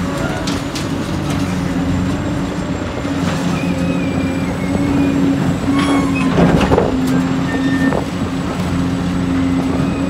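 Heavy construction machinery with a diesel engine running steadily, with short metallic squeaks and clicks from the working machine. A louder rush of noise comes about six and a half seconds in.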